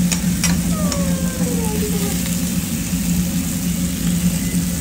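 Diced steak sizzling on a flat-top griddle, with a few sharp clicks of metal tongs and spatula against the steel early on, over a steady low hum.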